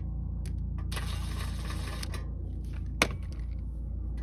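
Flat screwdriver working at a pipe connection on a diesel heater: a few light clicks, about a second of scraping, then one sharp click about three seconds in.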